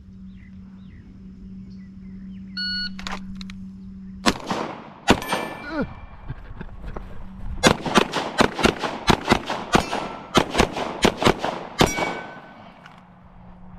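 An electronic shot timer beeps once, then gunshots follow: two single shots, then a rapid string of about a dozen shots fired in quick succession, as a shooter runs a timed drill.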